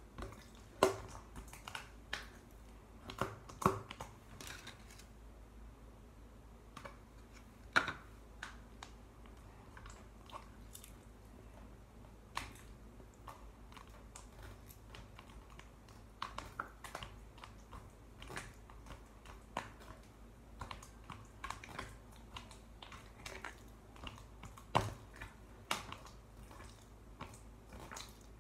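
Slime being handled by hand: irregular soft clicks and sticky pops, with a few louder pops scattered through.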